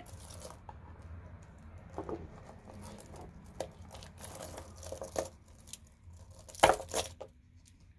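Stone and turquoise bead necklaces being rummaged through and lifted out of a wooden drawer: scattered small clicks and clinks of beads knocking together, with rustling, and a louder clatter of beads near the end.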